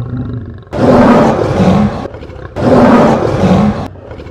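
Lion roar sound effect: a low growl, then two long roars one after the other with a short gap between them.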